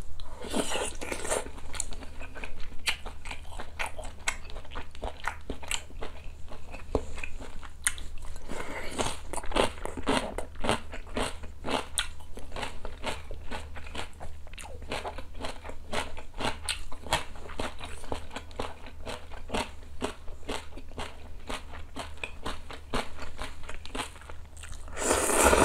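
Close-miked eating sounds of a person chewing sundae hot pot with blood sausage and ramen noodles: wet chewing and lip smacks in quick clicks, broken by a few slurps, the loudest near the end as noodles are sucked up.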